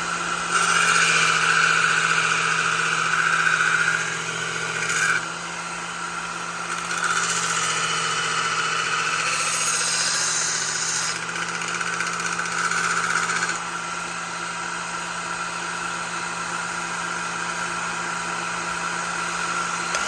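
Work Sharp Ken Onion belt sharpener's motor running with a steady hum while a pocket knife blade is drawn across the abrasive belt in several passes, each pass a louder grinding hiss. The motor is switched off at the very end and the sound drops away.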